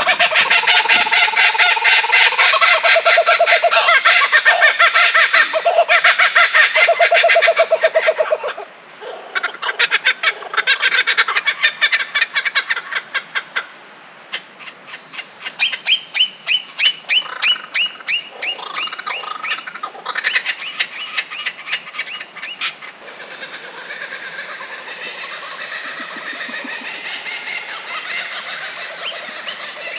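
Birds calling loudly in a dense chorus of rapidly repeated calls. It thins out about eight seconds in, picks up again with a fast, even series of strong calls in the middle, and eases to softer calling near the end.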